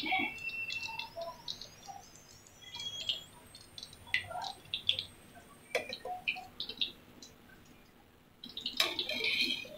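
Light scattered pops and crackles of hot oil as par-fried potato strips are lifted out with a wire spider skimmer. There is one sharp metal clink about six seconds in, and a brief run of clicks and clatter near the end as the fries go into a steel mesh sieve.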